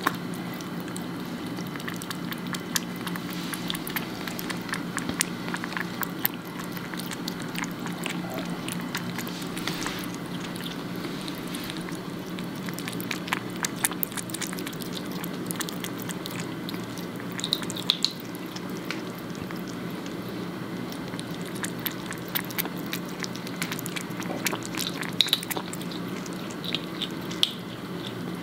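A kitten lapping water from a stainless steel bowl: small irregular wet clicks, over a steady low hum.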